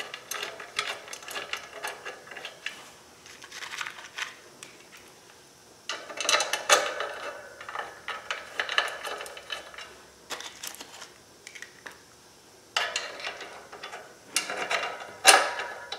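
Socket ratchet clicking in several quick runs, with light metal clinks, as the bolts of a clutch pressure plate are run into the flywheel; quieter pauses between the runs.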